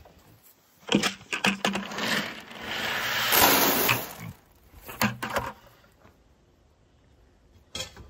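Dry pig feed pellets poured into a plastic trough: a rushing rattle for about two seconds, with a few short knocks just before and after it.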